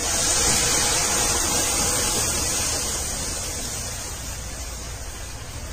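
Hot milk poured in a steady stream into a pan of hot ghee and fried dry fruits, splashing and hissing as it hits the fat. The hiss comes in suddenly and is loudest at the start, then slowly dies down as the pan fills.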